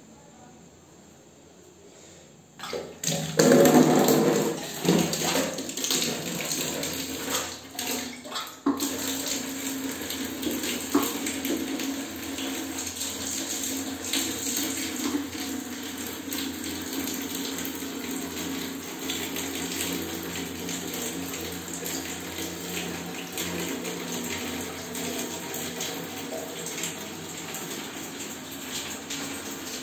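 Water running steadily, starting suddenly about three seconds in, loudest for the first couple of seconds and then settling to an even flow.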